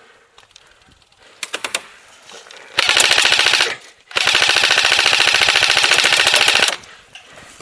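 Airsoft rifle firing on full auto: a few quick shots, then a short rapid burst, then a longer burst of about two and a half seconds, each a fast even rattle of shots.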